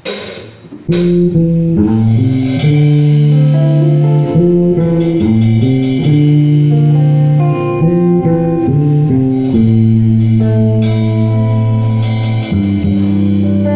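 A band playing an instrumental intro, led by electric bass guitar and guitar holding low sustained notes that change every second or so. There are a few sharp drum or cymbal hits in the first second.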